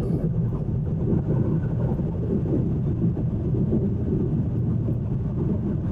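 Steady low tyre and road rumble of a 2020 Kia e-Niro electric car driving on a packed-snow road, heard inside the cabin. With no engine running, the noise is all tyres and road.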